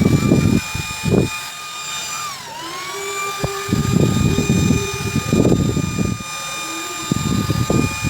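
Salvaged computer cooling fan, fed about 17 V DC from a homemade transformer-and-diode power supply, spinning very fast with a loud, steady high whine. About two and a half seconds in, the whine's pitch dips and then climbs back as the fan briefly slows and speeds up again. Bursts of low rumbling noise come and go over it.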